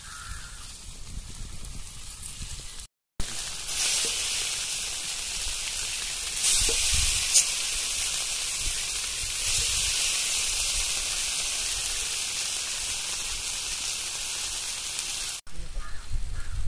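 Masala-coated fish frying in oil on a tawa: a loud, steady sizzling hiss that sets in after a brief break about three seconds in.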